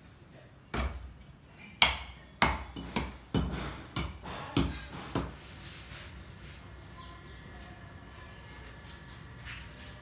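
A series of about eight sharp, irregular knocks, like hammering, over the first half, followed by a low steady background with a few faint, short high chirps near the end.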